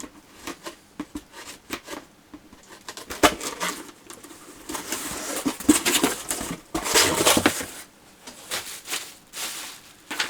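Cardboard model-kit box and its contents being handled: scattered taps and clicks, with stretches of rustling and crinkling in the middle and again near the end.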